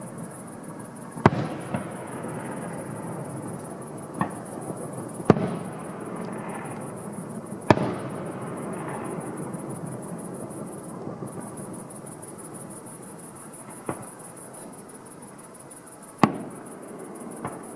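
Fireworks display: aerial shells bursting with sharp bangs every few seconds, the loudest about a second in, around five and eight seconds in, and near the end, over a continuous crackle and rumble between the bursts.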